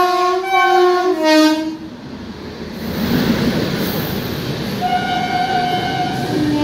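Passing express train's locomotive horn blowing as the train runs through the station, its pitch stepping down about a second in. Then the rumble of passenger coaches going by at speed, and the horn sounds again about five seconds in, dropping to a lower note near the end.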